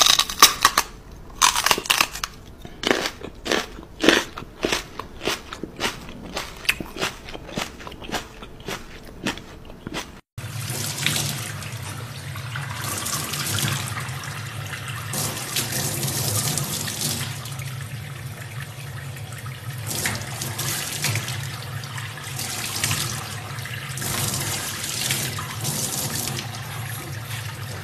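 A quick, irregular run of sharp crunching clicks. About ten seconds in it gives way to a tap running into a stainless-steel sink, with water splashing around a baby chimpanzee sitting in the stream.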